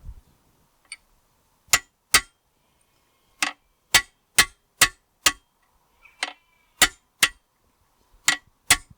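About a dozen sharp hammer blows on steel, irregularly spaced and often in quick pairs, with a short metallic ring: a part being driven out of a tractor axle casing.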